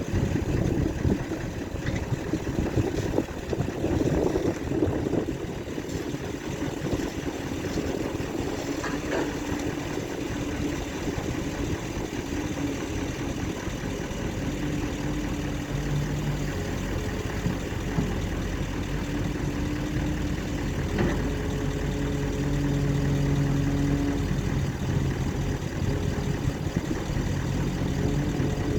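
Excavator running steadily while it works, the pitch of its engine shifting up and down now and then, with a couple of brief knocks.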